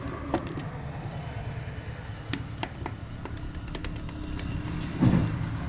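Scattered small clicks and taps of hand work on contactor wiring terminals, over a steady low hum, with a brief high whistle early on and a dull thump near the end.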